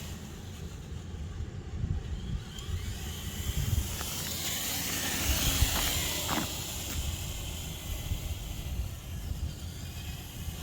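Traxxas TRX-4 RC crawler's electric motor and geartrain running, its pinion and spur gear meshing after the motor plate was shimmed to quiet a loud pinion noise. It gives a steady hiss over an uneven low rumble.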